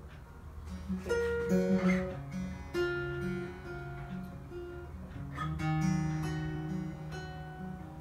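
Acoustic guitar playing an instrumental introduction, notes and chords ringing out one after another.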